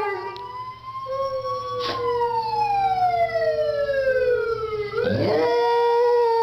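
Siren wailing: its pitch falls slowly for about three seconds, then sweeps back up, while a second steady tone is held beneath it over a low rumble. There is a single sharp click about two seconds in.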